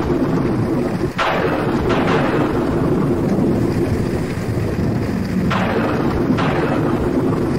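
Thunderstorm: a loud, continuous deep rumble of thunder over heavy rain, with sharper surges about a second in, near two seconds, and again around five and a half seconds.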